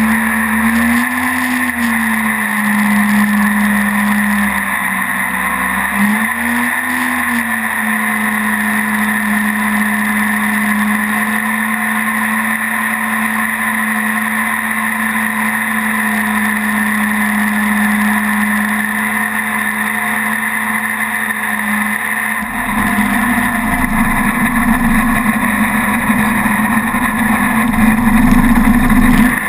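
Mini jet boat's engine running steadily at speed, its pitch briefly rising and falling about a second in and again around six seconds. From about twenty-two seconds a rough low rumble joins the engine note and the sound grows louder toward the end.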